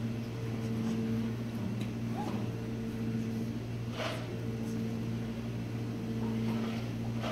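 Steady low electrical hum from a running kitchen machine, with a few faint light taps and a brief soft rustle about four seconds in.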